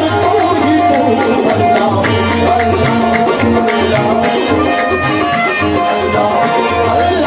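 Qawwali music: harmonium melody with held reedy notes over a steady hand-drum beat.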